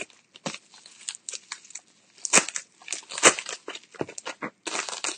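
Packaging being opened by hand, rustling irregularly, with two louder bursts a little after two seconds and about three seconds in.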